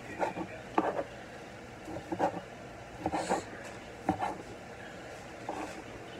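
Chef's knife chopping cooked chicken on a plastic cutting board: about half a dozen irregular knocks of the blade through the meat onto the board.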